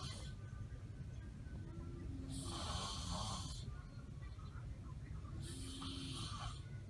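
A sleeper snoring heavily: two rasping snores about three seconds apart, each a hiss with a low buzz lasting about a second, over a steady low rumble.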